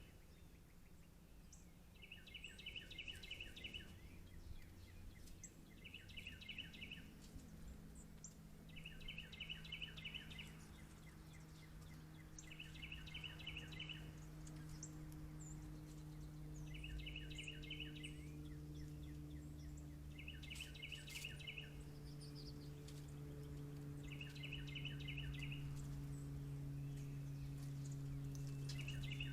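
A songbird singing a short, rapid trill of repeated notes, about eight times with roughly three to four seconds between phrases, over a low steady hum that grows louder toward the end.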